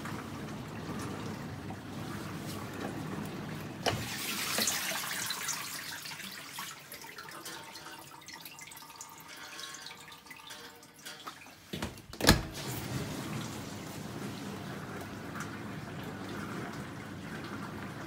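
Smeg SA663X dishwasher running its pre-wash rinse, with a steady hum of the circulation pump and water spraying inside. About four seconds in the door is unlatched with a click and a brief hiss of spray, and the wash goes quiet while the door stands open. A little after halfway the door shuts with a loud knock and the washing hum starts again.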